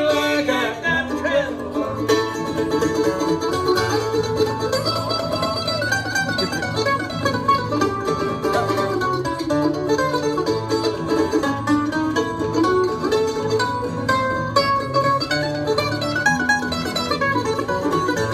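Bluegrass instrumental break: a mandolin plays the melody over acoustic guitar strumming a steady boom-chuck rhythm with alternating bass notes.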